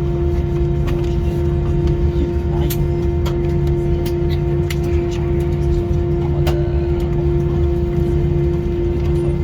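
Airbus A321 cabin after landing: a steady mechanical hum with a constant tone and low rumble, with scattered clicks and knocks from passengers moving.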